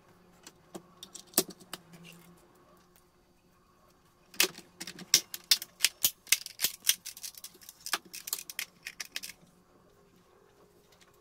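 Plastic clicking and rattling as the gauge face and plastic frame of a 2005 Chevy Express instrument cluster are fitted onto its circuit board by hand. A few clicks come in the first couple of seconds, then a quick run of sharp clicks lasting about five seconds.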